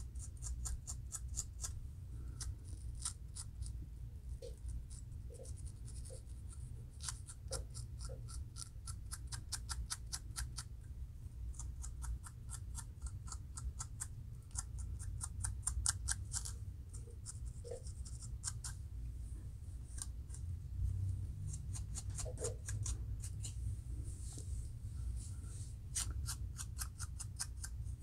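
Fine-tooth metal comb scraping across a dry scalp in runs of quick short strokes with brief pauses, lifting dandruff flakes.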